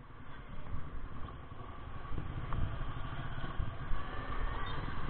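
Honda Click 125i scooter on the move, its engine running under low, uneven wind rumble on the microphone, getting louder about two seconds in.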